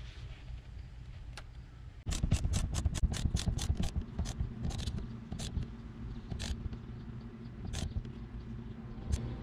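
Ratchet wrench clicking as it works the steering-column nut holding the steering-wheel hub: a fast run of about seven clicks a second, then slower, scattered clicks. It follows a low, steady rumble during the first two seconds.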